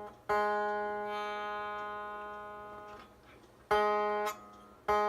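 Tanpura string plucked three times while a cotton thread under it is being set on the jawari bridge. Each note rings with a dense, buzzing stack of overtones. The first note rings out for about three seconds, the second is stopped short after about half a second, and the third is plucked near the end. This is the trial plucking used to find the thread's sweet spot for the buzzing jawari sound.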